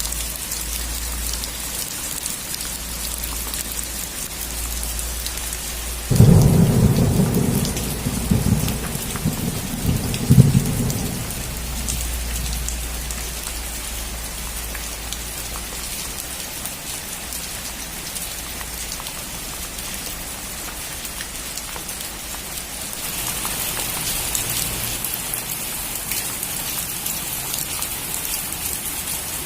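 Steady rain on a roof, with a sudden thunderclap about six seconds in that rumbles for roughly five seconds, with two louder cracks, before fading. The rain grows heavier near the end.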